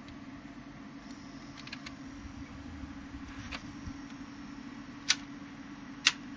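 Pioneer PL-X300 automatic mini turntable's mechanism running with a steady hum, a few light ticks, then two sharp clicks about a second apart near the end.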